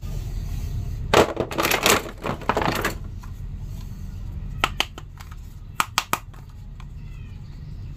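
Plastic action figures being handled over a clear plastic packaging tray: a burst of crinkling and clicking about a second in, then a few separate clicks.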